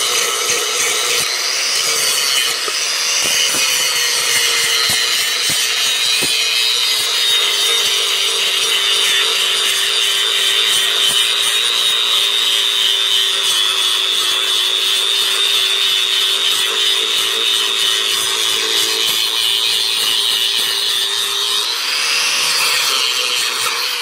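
Angle grinder grinding the flange on the end of a stainless steel exhaust pipe: a continuous motor whine under load, its pitch lifting briefly twice as the disc eases off the metal, once a few seconds in and again near the end.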